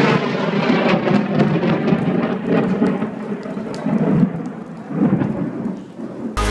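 Thunder rolling in a long rumble over rain, swelling and easing several times, then cut off shortly before the end.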